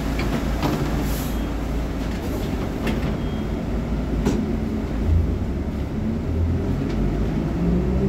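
Diesel engine of a VolksBus 17.230 OD Euro V city bus running at idle, a steady low rumble with a few short sharp clicks.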